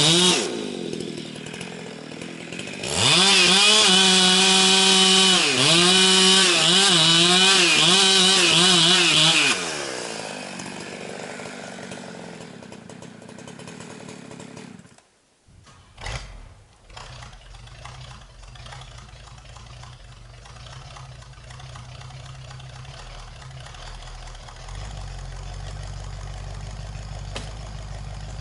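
Husqvarna 365 chainsaw revving at full throttle and cutting into poplar, its pitch dipping several times as the chain bogs in the wood, then dropping back and fading. About halfway through it gives way to a low, steady diesel-type engine idling, most likely the skidder.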